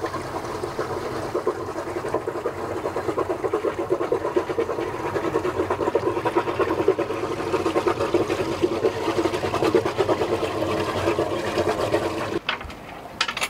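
Metal paravane support chain rattling steadily as it is run down from the boom onto the deck, stopping abruptly about twelve seconds in.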